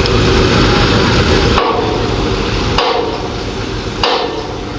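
Three hammer blows on metal, about one every 1.2 seconds, each with a short ring. A loud low rumble drops away at the first blow, about a second and a half in.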